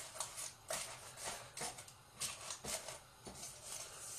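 Baking paper under a sheet of puff pastry rustling and crinkling in short, irregular crackles as it is pressed into a cake tin.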